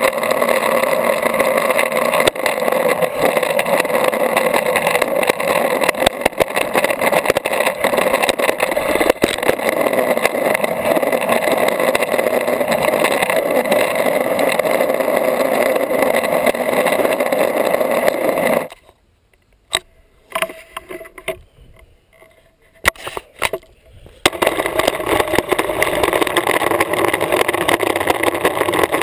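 Longboard wheels rolling fast on asphalt, heard from a camera mounted on the board: a steady roar with small clicks from the pavement. About two-thirds of the way in it falls almost quiet for about five seconds, with a few knocks, then the rolling roar returns.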